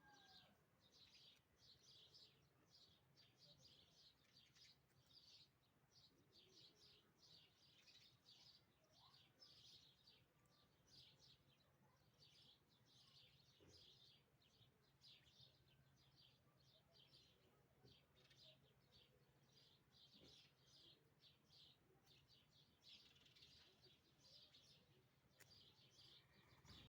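Faint bird chirping: a steady run of short, high chirps, several every second.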